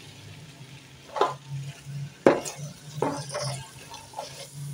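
Black plastic slotted spatula stirring boiled bottle gourd cubes into cooked chana dal and masala in a pot: a few short, wet scraping strokes against the pot.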